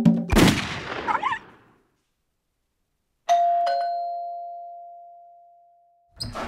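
A loud rifle shot with a long fading tail. After a second or so of silence, a two-note ding-dong doorbell rings and fades slowly. Near the end, a door latch clicks as the lever handle is pressed.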